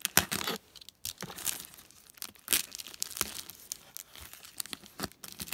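Plastic bubble wrap crinkling and rustling in irregular bursts as it is pulled off a boxed set by hand.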